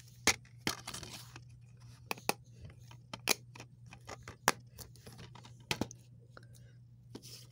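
Plastic DVD cases being handled and opened: a string of sharp, irregular clicks and clacks over a faint steady hum.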